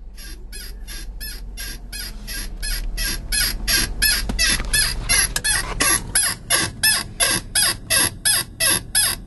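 Pioneer car CD stereo playing the opening of a new track through the freshly replaced dash speakers of a 2000 Chrysler Voyager: a rhythmic, high-pitched chirping pattern about three times a second. It grows louder over the first few seconds as the volume is turned up.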